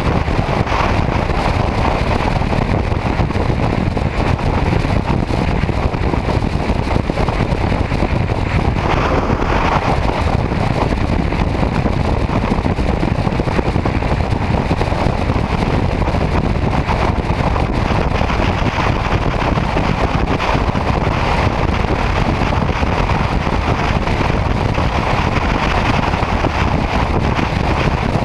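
Motorcycle cruising at highway speed: steady wind rush over the bike-mounted camera's microphone, mixed with the engine and road noise.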